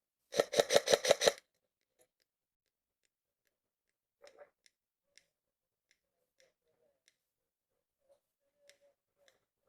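Airsoft gun firing a rapid burst of about seven shots in just over a second, followed by a few faint, scattered clicks of distant airsoft fire.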